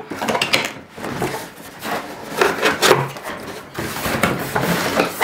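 Cardboard box being opened: irregular scraping and rubbing of cardboard on cardboard as the inner box slides out of its outer sleeve.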